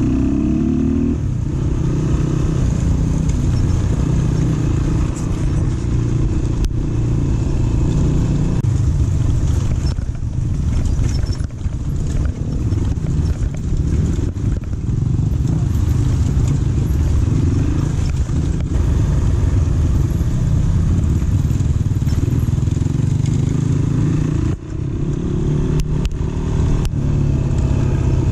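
Dirt bike engine running while riding, its pitch rising several times as the throttle is opened and easing off between, with a few sharp knocks near the end.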